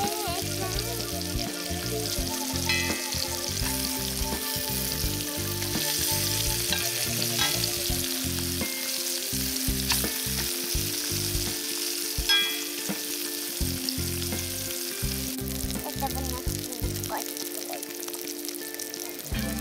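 Floured pieces of small river fish sizzling as they fry in a pan. A spoon clicks against the pan now and then as the pieces are turned.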